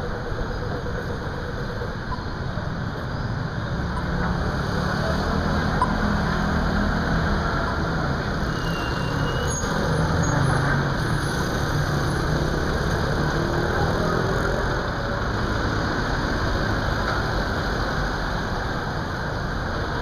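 Street traffic: car and motorbike engines running and passing in a steady din, with a low engine hum that grows louder about four seconds in and fades after the middle.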